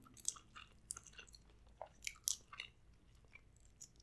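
Quiet, close-miked chewing: soft wet mouth clicks and smacks, irregular, a few a second.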